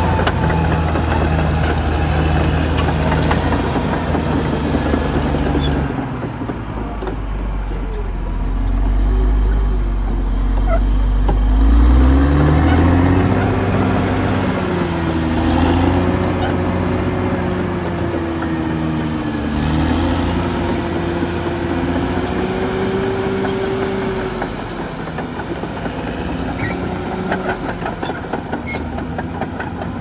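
Caterpillar D6R XL crawler bulldozer's diesel engine running under load as it pushes soil and brush. The engine note drops about six seconds in and climbs back up around twelve seconds, with a wavering whine through the middle stretch.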